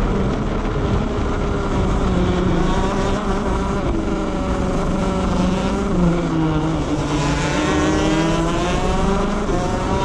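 Two-stroke shifter kart engine heard on board at racing speed, with other karts running close ahead. The pitch dips about six seconds in, then climbs steadily as it accelerates again.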